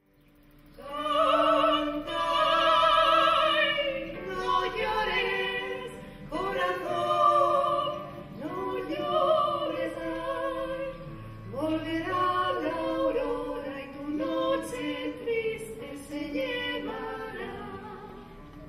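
Two women singing a duet into microphones, their voices held on long notes with wide vibrato. The singing fades in after a moment of silence at the start.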